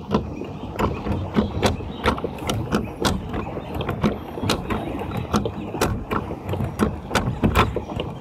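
Pedal boat being pedalled: the pedal crank and paddle-wheel mechanism clicking in a steady rhythm, about two to three clicks a second, over a low rumble.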